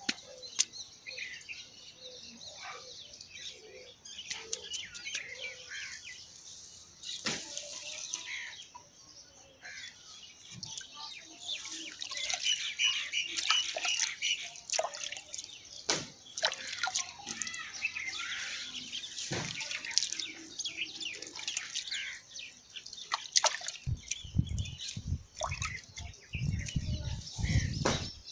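Dry basil stalks and seed heads crackling and rustling as they are handled and crumbled by hand, with scattered sharp clicks; from about 24 seconds in, heavy low thumps as the bundle is pressed close.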